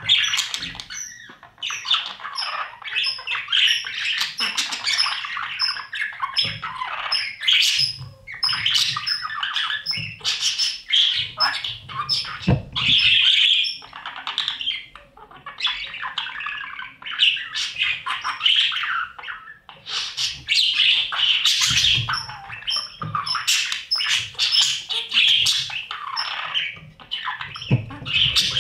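Budgerigars in a nest box, chicks and parent birds, giving near-continuous raspy squawks mixed with short high chirps, close to the microphone inside the box. Soft low thumps come now and then.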